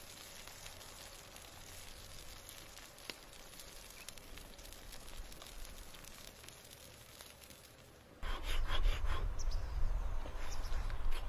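Faint hissing with light crackles, like food sizzling on a hot stone slab. About eight seconds in this gives way to a loud crunching bite into a crisp, Buddha-shaped green fruit, then close-up chewing.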